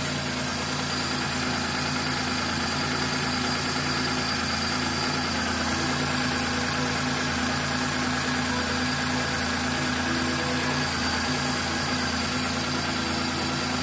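Hyundai Eon's petrol engine idling steadily, running after its throttle body has been cleaned.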